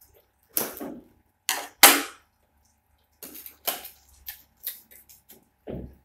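Cardboard box being pulled and torn open by hand: three loud sharp rips in the first two seconds, then a run of smaller crackles and snaps.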